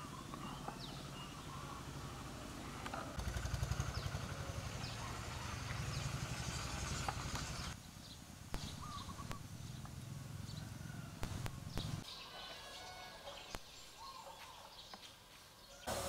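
A small engine running steadily, louder for a few seconds in the middle and dropping away about halfway through, then gone about three-quarters of the way in, leaving quiet outdoor background with scattered clicks.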